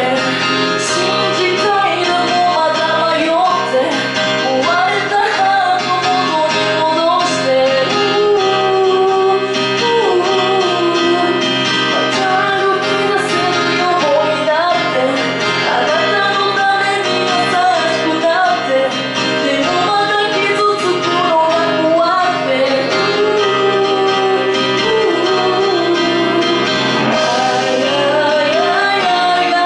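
A woman singing a song live into a handheld microphone over instrumental backing, her voice holding long notes that waver and bend in pitch.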